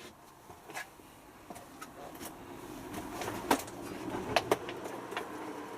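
Handling and start-up of a Hotpoint HF8B593 washing machine: several sharp clicks and knocks, then a low steady hum that builds from about halfway in as the machine begins its cycle.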